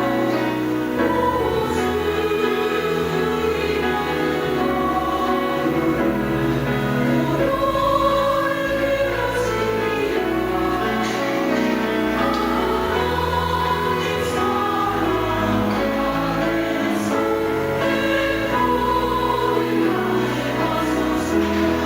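Church choir singing a hymn over instrumental accompaniment whose low notes are held and change every second or two.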